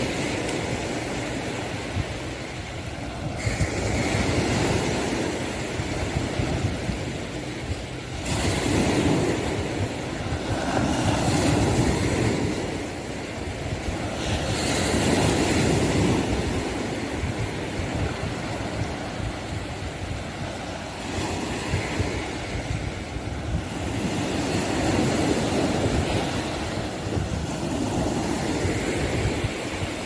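Ocean waves breaking and washing up a beach, swelling and easing every few seconds. A steady low rumble of wind on the phone's microphone lies under them.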